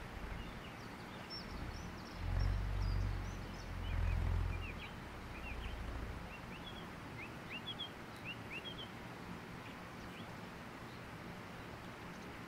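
Rimu-wood purerehua (Māori bullroarer) whirled on a cord from a long handle: a low throbbing drone that swells twice in the first few seconds and dies away about halfway through. Small birds chirp throughout.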